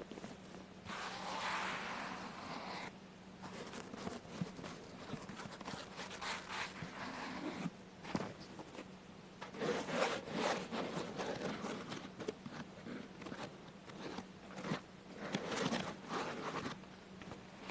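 Scraping, rustling noises in several bursts of a second or more each, over a faint steady hum.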